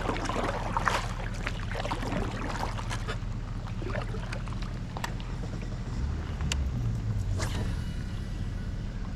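Kayak on the water: a steady low rumble with scattered sharp knocks and clicks, about one a second, from paddle and gear against the boat.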